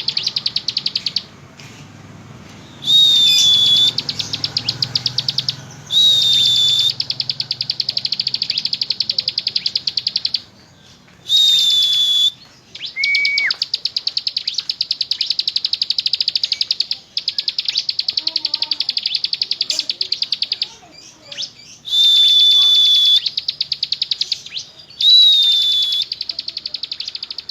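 Ciblek gunung (a prinia) in full song: a long, very fast rattling trill of high ticking notes, the drill-like 'ngebren' song. About five times it breaks into a steady high whistled note about a second long, and once into a lower whistle that drops away.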